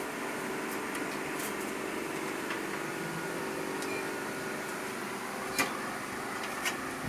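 Steady hum of a fan or air conditioner, with a few sharp clicks and taps of computer parts being handled in a PC case, the loudest about five and a half seconds in.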